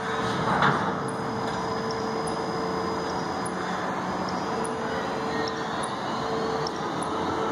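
Rubber-tyred gantry crane at work: a steady machinery drone with a constant mid-pitched whine, and a brief louder burst of noise about half a second in.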